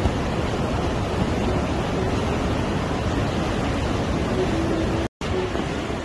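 Sea surf breaking over rocks along the shore: a steady rushing noise of waves, broken by a split-second dropout about five seconds in.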